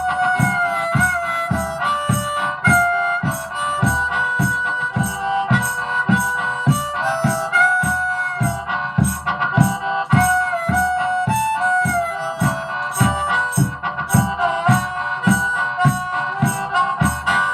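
Harmonica playing a minor-key tune with small bent notes over a steady percussive beat, about two and a half strokes a second.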